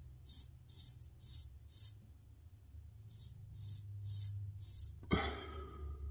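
Kikuboshi Feon straight razor scraping through lathered stubble in short strokes, about two a second, with a pause in the middle. A sharp knock about five seconds in is the loudest sound.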